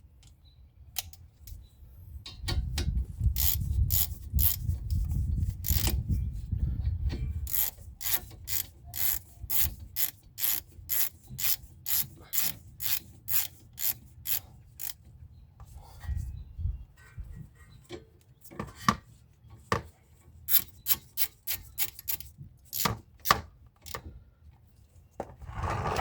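Socket ratchet clicking in quick repeated strokes, about two a second, as a brake caliper bolt is run in with a 14 mm socket, pausing briefly past the middle before a few more strokes.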